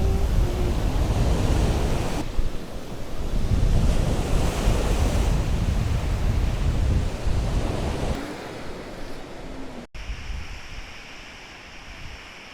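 Baltic Sea surf washing on the shore with strong wind buffeting the microphone. About ten seconds in it cuts to a much quieter, calmer stretch.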